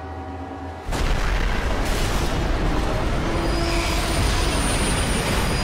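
A train horn sounding, cut off about a second in by a sudden loud, sustained crashing boom: a head-on collision between two trains, as staged for a TV reconstruction.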